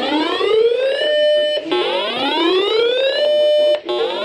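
Electronic whoop-style alert siren: a tone rising in pitch for about a second and a half, holding briefly, then starting its rise again about every two seconds.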